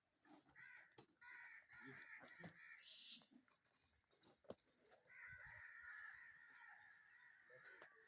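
A farm animal calling: two long, drawn-out calls, the first starting about half a second in and the second about five seconds in.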